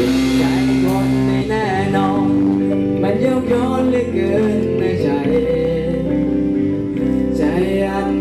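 Live band playing a song's instrumental intro: held chords and a steady bass line under a wavering lead melody, with guitar.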